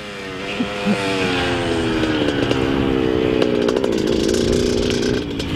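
Dirt bike engine running as the bike rides along, its pitch sinking slowly over the first few seconds, then rising a little and holding steady.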